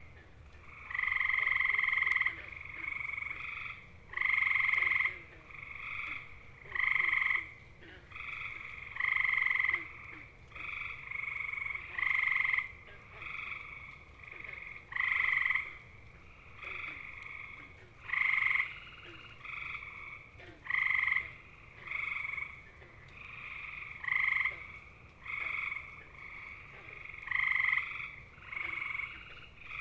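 Male gray tree frogs (Hyla versicolor) giving their mating call: a loud, musical, bird-like trill. Each trill lasts about a second and repeats every few seconds. Fainter trills fall in the gaps between the louder ones.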